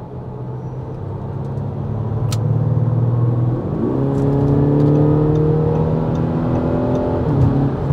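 Audi A6 3.0 TDI V6 diesel accelerating in comfort mode, its engine note boosted by the sound actuator. The sound grows louder over the first few seconds, jumps up in pitch about three and a half seconds in, rises slowly, then drops back near the end.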